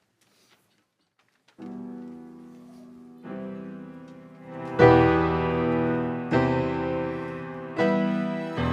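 Piano introduction: after a second and a half of near silence, sustained chords are struck about every one and a half seconds, starting soft and growing louder, the strongest about five seconds in.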